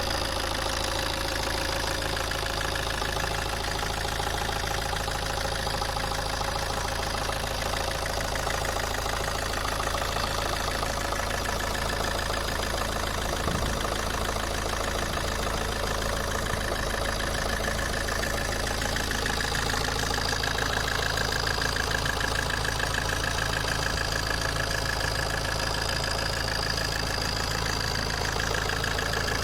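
Alfa Romeo 159's 1.9 JTDm 150 hp four-cylinder diesel engine idling steadily; the owner is unsure whether its noise is normal.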